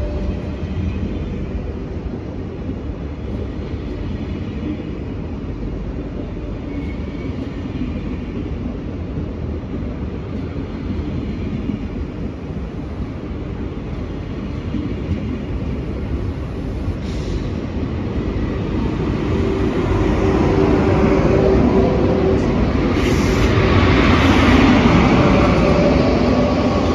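A train running at the station: a steady rumble that grows louder over the last third, peaks near the end and then eases a little, with a steady tone joining in partway through.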